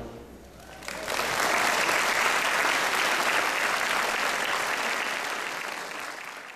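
Audience applauding, breaking out about a second in as the last of the orchestra's final chord dies away, and fading out near the end.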